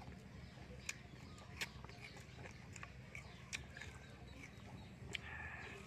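Eating sounds: soft chewing, with a few sharp clicks of chopsticks against the metal food tray, over a steady low hum.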